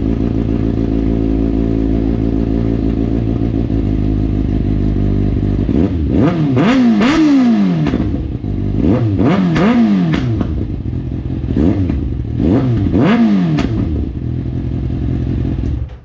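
2024 Kawasaki ZX-6R's inline-four engine running loud through a freshly fitted M4 slip-on exhaust: idling steadily, then revved in three sets of quick throttle blips, back to idle, and shut off near the end.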